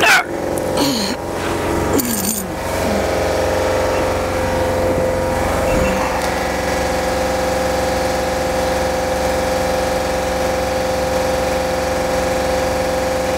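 Metal tools clinking and clattering several times in the first few seconds, over a steady mechanical hum that runs throughout.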